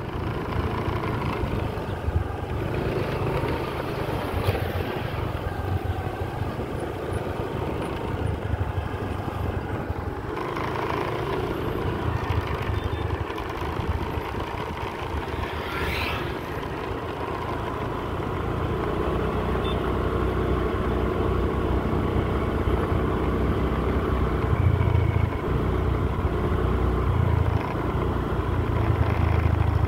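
A vehicle driving along a road: its engine running steadily with road and wind noise, a little louder in the second half.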